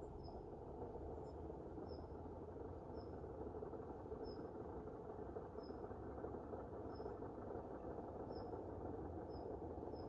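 Outdoor hillside ambience: a steady low rush of noise, with a short, high chirp repeating about once a second.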